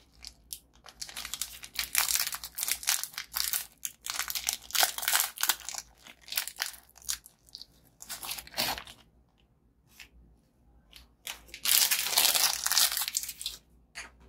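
Plastic biscuit wrapper crinkling and tearing as a packet is handled and opened, in irregular crackly bursts. A quieter gap of about two seconds falls past the middle, then a loud stretch of crinkling comes near the end.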